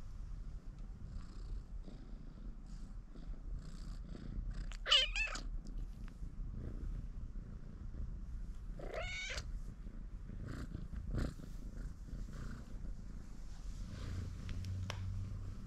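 A kitten purring steadily, the purr growing stronger near the end as its head is stroked, with two short meows about five and nine seconds in.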